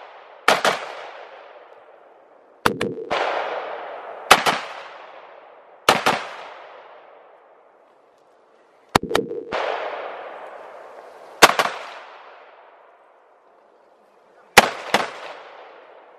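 Rifle shots fired one at a time at an irregular pace, some in quick pairs, about ten in all, each sharp crack followed by a long fading echo.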